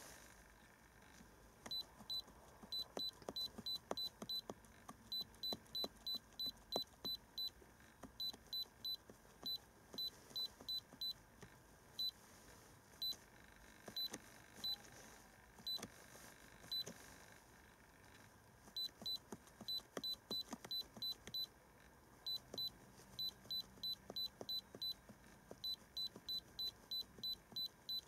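iCarsoft i930 handheld scan tool beeping once at each key press as its menus are scrolled: short, high-pitched beeps in quick runs of several, with short pauses between the runs.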